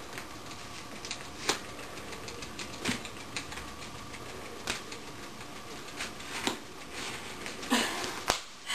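Scissors cutting through heavy packing tape on a cardboard box, giving irregular sharp snips and clicks with rustling cardboard in between.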